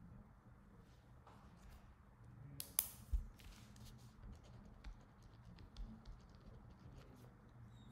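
Quiet room tone with scattered faint clicks and taps, two sharper ones close together about three seconds in.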